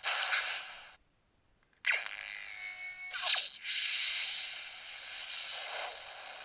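Doctor Who sound-effect keyring playing effects through its tiny speaker. A hissing burst cuts off about a second in, and after a short gap comes a tinny sound with several pitched tones. It is followed by a long, steady rushing noise that fades near the end.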